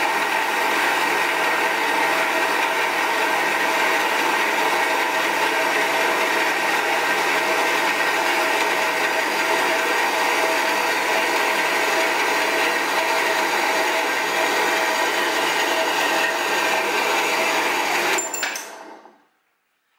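A 7x12 horizontal metal-cutting bandsaw runs and cuts through metal stock: a steady, loud whir with a hum from the motor. About eighteen seconds in there is a sharp click and the motor spins down to silence within about a second.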